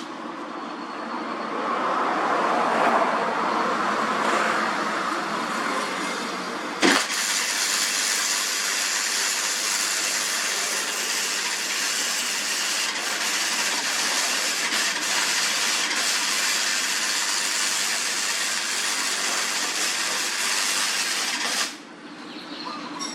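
Electric welding arc: it strikes with a sharp crack about seven seconds in, then burns with a steady crackling hiss for about fifteen seconds before cutting off abruptly. A lower rushing noise comes before it.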